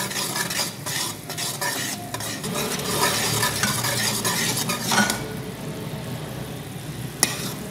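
Metal spoon stirring and scraping in a steel pan of boiling sugar syrup, which is bubbling and hissing as it boils down to one-thread consistency. The stirring stops about five seconds in, leaving the bubbling, and there is one sharp click near the end.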